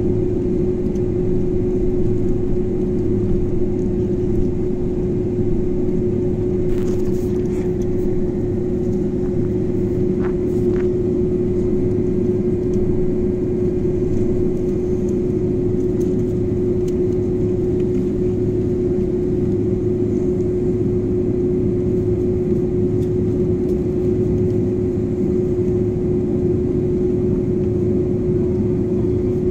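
Jet airliner cabin noise during taxi: the engines at low thrust give a steady hum with one unchanging tone over a low rumble, and a couple of faint clicks about a third of the way in.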